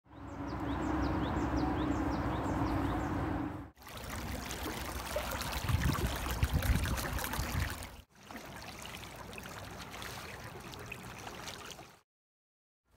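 River water rushing over a shallow riffle, heard in three short clips that cut off abruptly, with about a second of silence at the end. In the first clip there is also a steady low hum.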